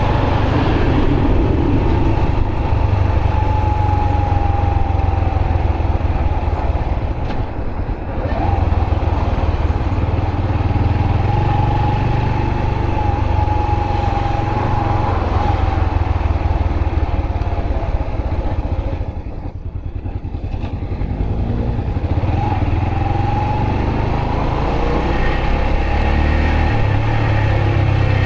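Yamaha YBR125 motorcycle on the move, its single-cylinder four-stroke engine running steadily under a rider. The sound eases off for a couple of seconds about two-thirds of the way through, then picks back up.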